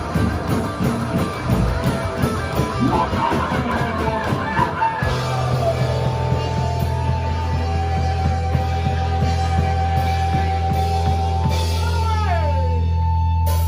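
Rock band with electric guitar, bass and drum kit. About five seconds in, the drums drop out and a low bass note and guitar chord are held and ring on, and near the end the guitar slides downward in pitch, like the close of a song.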